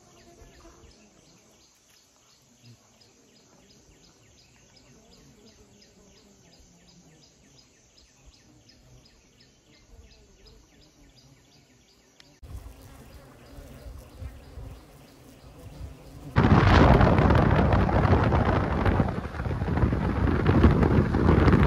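A quiet stretch with faint, rapid ticking, then a low rumble starting a little past halfway. About three-quarters of the way through, loud wind rushing over the microphone and road noise from a moving car take over.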